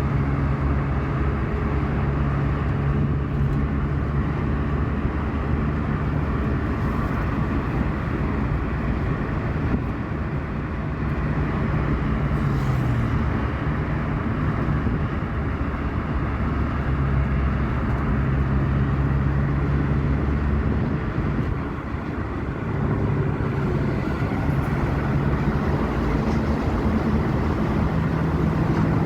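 Steady travel noise of a moving vehicle: a continuous low rumble with a deep drone that drops away and returns a few times.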